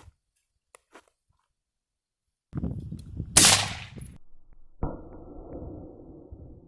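AR-15 rifle fired at soda cans: a sudden blast about two and a half seconds in, loudest a second later, then a second sharp report near five seconds that dies away slowly.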